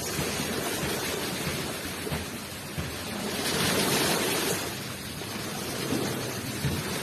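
Ocean waves rushing up the shore: a continuous wash of surf that swells to a peak about four seconds in and then falls back.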